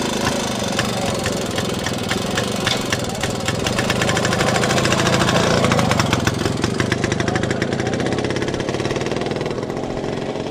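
Small vintage motorcycle engine running with rapid firing pulses just after being kick-started, getting louder as the bike pulls away and then slowly fading.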